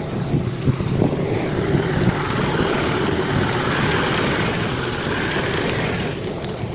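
Bulldozer's diesel engine running steadily, its sound growing brighter and fuller for a few seconds in the middle before easing back.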